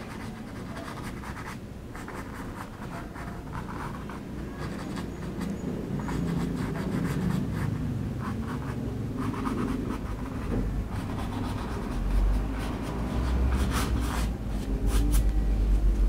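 Stiff bristle flat brush scrubbing acrylic paint across a canvas in quick, scratchy strokes as the sky clouds are blended. A low rumble builds underneath in the second half and becomes the loudest sound near the end.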